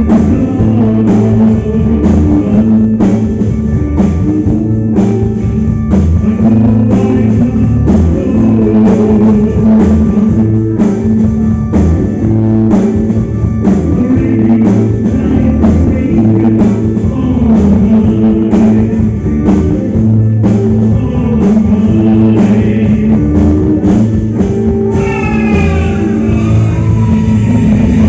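Rock band playing with drum kit, guitar and singing, the drums keeping a steady beat under a strong bass line. Near the end a run of falling high notes comes in.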